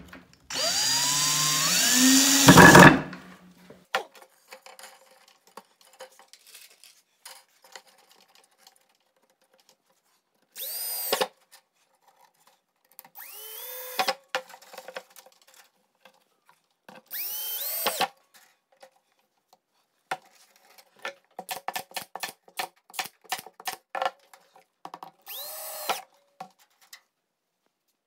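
DeWalt cordless drill driving screws into a wooden strip: one long run about a second in, getting louder and slowing as the screw seats, then four shorter runs spread out, each winding up and down in pitch. A string of small clicks and taps comes between the last two runs.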